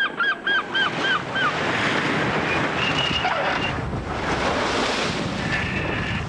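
Rushing sea surf and wind. It opens with a quick run of honking bird calls that die away about a second and a half in, and a brief high tone sounds twice later on.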